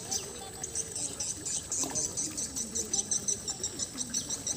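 Insects chirping in a rapid, even pulse, about five chirps a second, over a steady high buzz.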